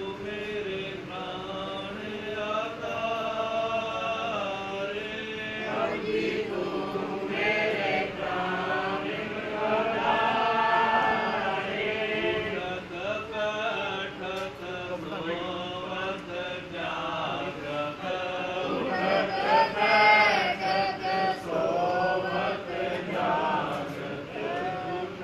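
Men's voices chanting a Sikh devotional hymn together, the melody rising and falling continuously.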